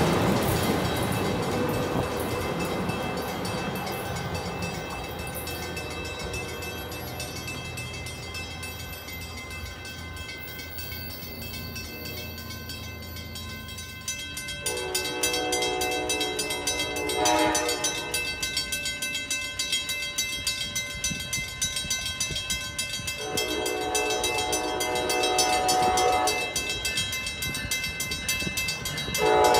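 Amtrak Acela Express trainset pulling away and fading. Then grade-crossing bells ring rapidly as an approaching train sounds its horn for the crossing: two long blasts and a short one near the end.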